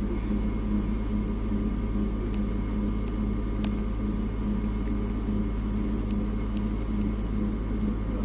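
Interior of an unmodernised 1965 EN57 electric multiple unit on the move: a steady low hum with a throbbing drone in it, faint steady whines above, and a few light clicks.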